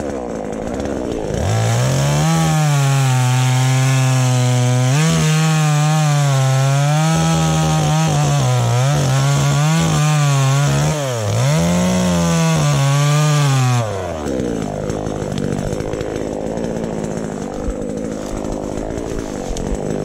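Two-stroke chainsaw at full throttle cutting through a felled acacia limb. Its pitch wavers and sags as the chain bites into the wood. It revs up about a second and a half in and drops back to idle about fourteen seconds in.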